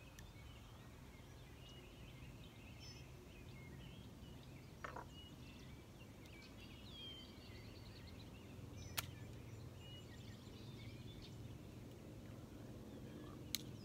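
Flintlock pistol's lock snapping three times without a shot: short sharp clicks about five, nine and thirteen and a half seconds in, a misfire. Small birds chirp faintly throughout.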